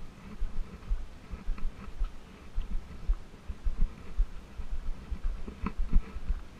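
Footsteps walking on a sandy dirt road, heard as dull low thumps in a steady walking rhythm, mixed with the handheld camera jostling with each step.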